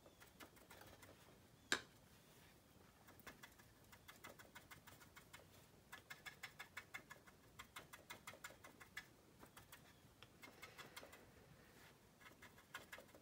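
Faint, quick taps of a small stiff brush stippling oil paint onto a plastic scale-model wing, coming in short runs of several taps a second, with one sharper click a couple of seconds in.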